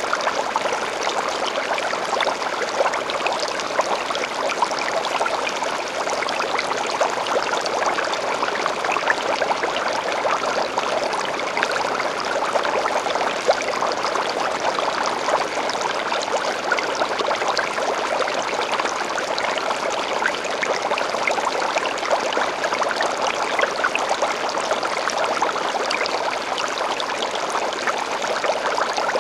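Water in a home aquarium running steadily: a trickling rush with fine crackles, the sound of water moving through and splashing in the tank.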